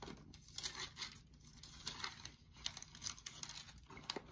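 Pages of a Bible being leafed through: a run of faint, irregular paper rustles and crinkles.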